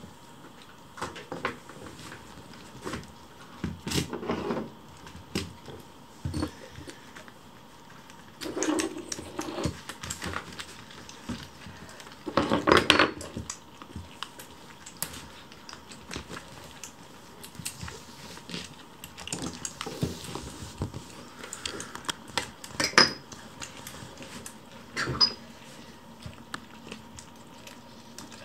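Kitten food bowls and saucers knocking and clinking on a wooden floor as they are set down and nudged about, with scattered light clicks in between. The loudest clatters come about 4, 13 and 23 seconds in.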